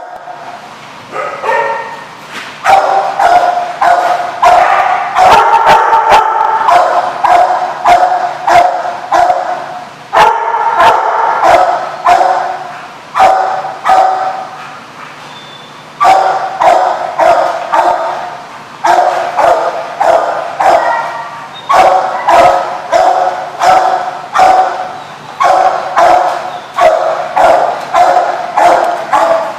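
Dog barking repeatedly in fast, sharp bouts of several barks each, with a brief lull about halfway through.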